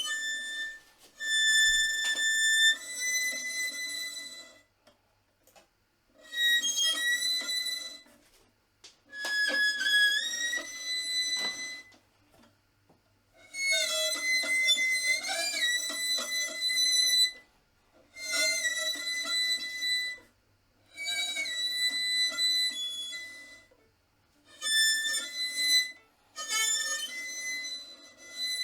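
Solo instrumental music: a melody of held high notes with occasional slides in pitch, played in phrases of two to four seconds separated by short pauses.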